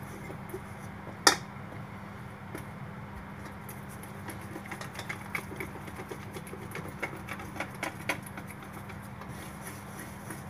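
Electric hand mixer running steadily, its beaters whisking chocolate cake batter in a stainless steel bowl, with sharp clicks as the beaters knock the side of the bowl: a loud one about a second in and a run of them from about five to eight seconds in.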